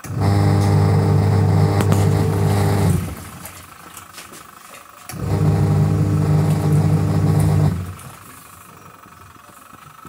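Panasonic NA-W77FCW1 twin-tub washing machine's wash motor and pulsator running in on-off wash strokes: a steady hum for about three seconds, a two-second pause, then another run of about two and a half seconds before stopping. The machine is new but makes a rough noise, like friction or wear, which the owner takes for a fault.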